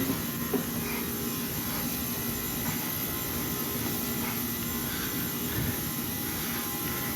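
Steady machinery hum with a faint buzz, with a few light knocks and scuffs from someone crawling through a tight space.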